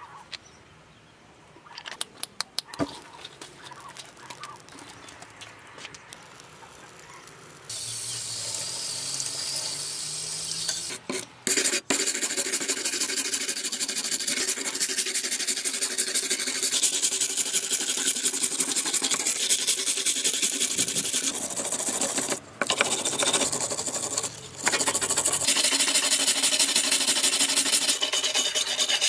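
Steel wire brush scrubbing a rusty steel trowel blade in fast, hard back-and-forth strokes: a loud, dense scratching that starts after a quieter opening with a few clicks and pauses briefly twice.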